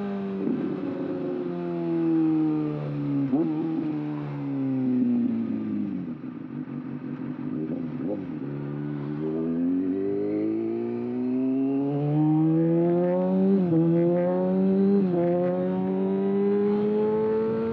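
Kawasaki ZX-6R's inline-four engine through an aftermarket exhaust, heard while riding. The engine note falls steadily for about six seconds as the bike slows, then climbs steadily through the second half as it accelerates, with a few short jumps in pitch along the way.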